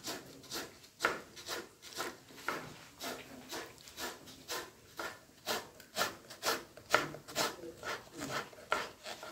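Repeated short scraping strokes from kitchen work, about two a second.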